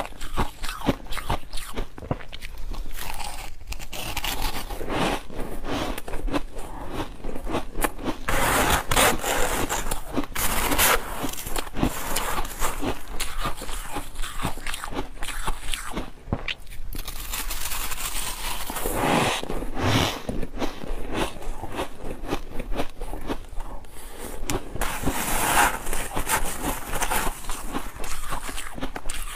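Metal spoon scraping and scooping through a tray of soft freezer frost, with crunchy bites and chewing of the frost picked up close on clip-on microphones.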